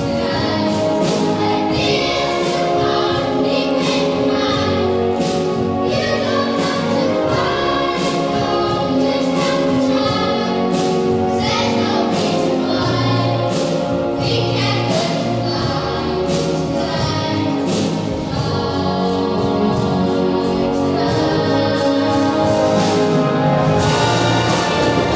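Children's and youth choirs singing a song together with a symphony orchestra, with drums striking a steady beat.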